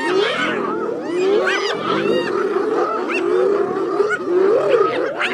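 A noisy chorus of many overlapping wild animal calls: lionesses snarling and growling in a scuffle, with spotted hyenas whooping and giggling over them.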